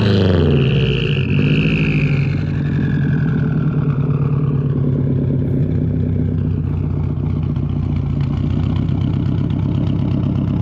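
2005 Subaru Impreza WRX STI's turbocharged 2.5-litre flat-four running loud through a Tomei Expreme Ti exhaust with a catless downpipe and the stock unequal-length headers. Its revs drop back from a blip in the first second or so and it settles into a steady, pulsing idle.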